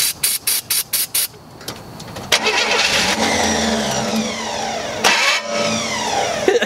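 Several short hisses of starter fluid sprayed into the carburetor. Then the Chevy II Nova's long-dormant engine fires and runs on the starter fluid, its pitch falling, cuts out for a moment about five seconds in, and catches again.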